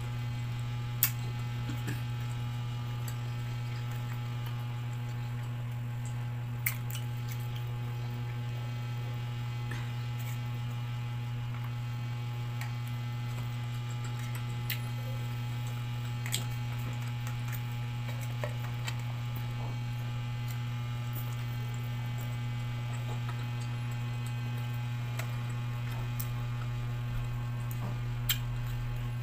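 Steady low hum throughout, with a few short sharp clicks and soft chewing of boiled baby octopus now and then.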